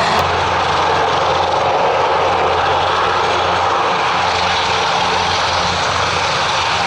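Airbus H225M Super Cougar twin-turboshaft helicopter hovering close to the ground: loud, steady main rotor and turbine noise with a constant low hum underneath.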